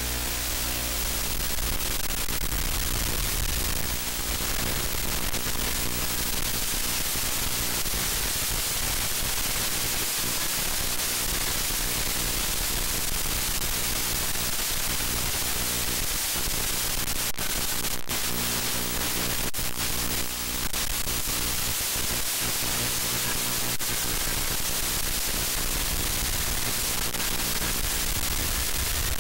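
Steady hiss and static from an analog 5.8 GHz FPV video link's audio channel, with a constant low buzz beneath it. A few brief crackles of signal break-up come a little past the middle.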